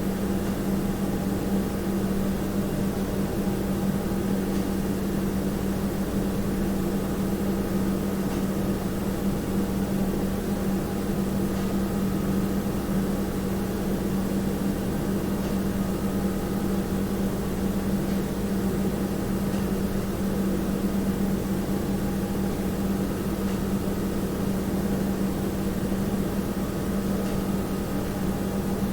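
Household room tone: a steady, unchanging low hum with a few fainter tones above it and an even hiss, as from an appliance or ventilation running in an otherwise quiet house.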